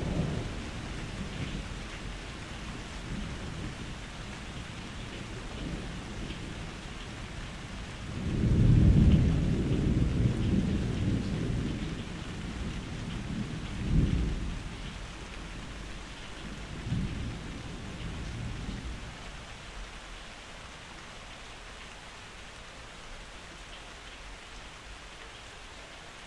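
Steady rain with rolling thunder: a long low rumble about eight seconds in, a sharper clap near the middle, and a fainter rumble a few seconds later, after which only the rain goes on.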